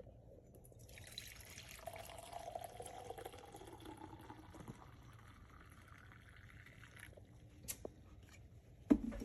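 Ninja drip coffee maker brewing: hot water trickling and dripping into the glass carafe, a faint steady hiss that cuts off about seven seconds in. A sharp click follows, then a louder knock near the end.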